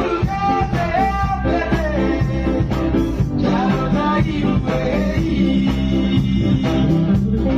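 Band music with a singing voice over guitar and a steady beat.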